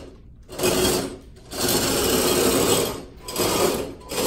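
FTC robot's individually powered drive motors and mecanum wheels whirring in about four bursts, starting and stopping as the robot is driven in short moves across a hard floor; the longest burst lasts about a second and a half.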